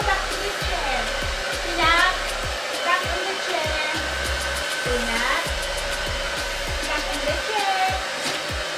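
Hand-held hair dryer blowing steadily while drying a wet dog's coat after a bath, with a constant rushing hiss and a steady high whine, and some gliding pitched sounds over it.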